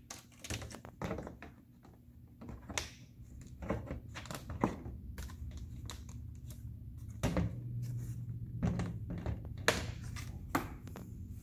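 Hard plastic wall panels of an Ultimate Arendelle Castle toy playset being pressed and snapped together: a series of irregular knocks and clicks.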